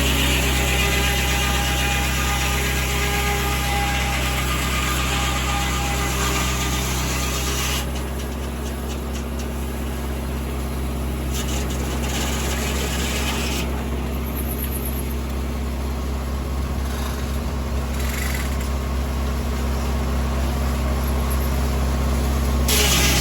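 A tractor engine runs steadily, driving a circular sawmill. For the first eight seconds or so, a dense hiss rides over it, which fits the blade cutting through a poplar log. The hiss falls away, then starts again sharply near the end.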